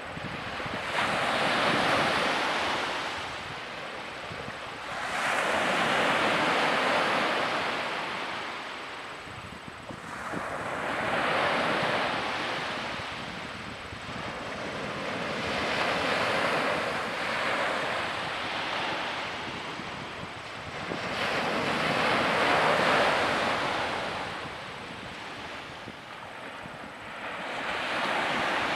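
Small waves breaking and washing up a sandy beach. The surf swells and fades about every five seconds, six times in all.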